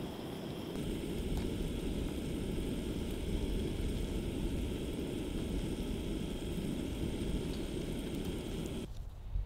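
Gas canister camp stove's burner running under a pan of cooking pancake batter, a steady hiss that stops abruptly near the end.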